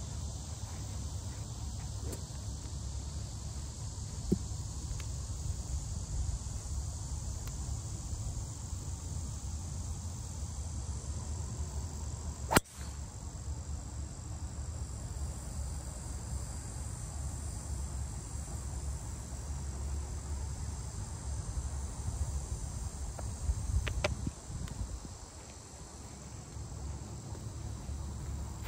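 A driver striking a golf ball off the tee: one sharp crack about twelve seconds in, by far the loudest sound. Behind it runs a steady high drone of insects and a low rumble.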